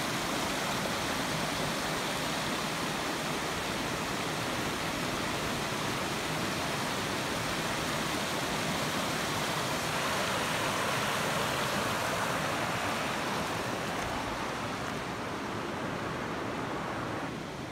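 Mountain creek rushing steadily over boulders, a small cascade of whitewater among the rocks, a little quieter near the end.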